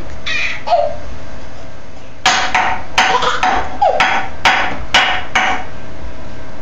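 Plastic cup banged repeatedly on a kitchen countertop: about eight sharp knocks, roughly two a second, starting about two seconds in and stopping a second before the end.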